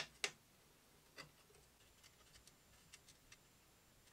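Small plastic clicks and taps from hands fitting a coolant reservoir and its bracket onto a model engine's radiator: two sharp clicks at the very start, another about a second in, then a few faint light ticks.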